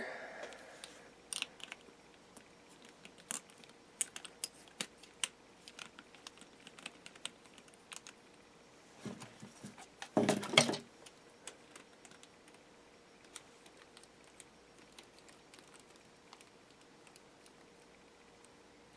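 Light scattered clicks and taps of a hand tool and small parts as a nut is undone on an RC buggy's spur gear assembly, with a louder patch of scraping and rattling about nine to eleven seconds in.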